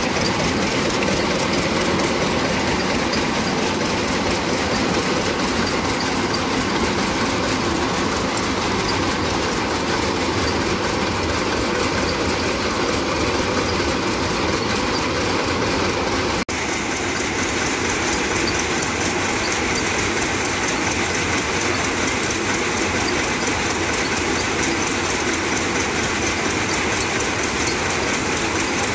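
Peanut shelling machine running steadily, belt-driven by a stationary engine, with a fast, continuous rattle of pods and kernels through its drum and sieves.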